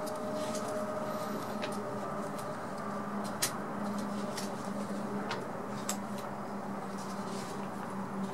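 Plastic sleeve pages of a banknote album being turned by hand, giving crinkles and sharp clicks, the sharpest about three and a half seconds in. A steady hum runs underneath.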